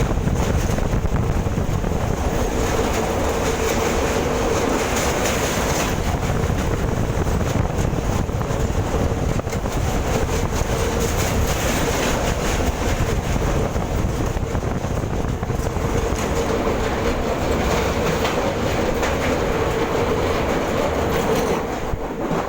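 Train running on the rails: a steady rumble with wheel clatter and a faint steady hum.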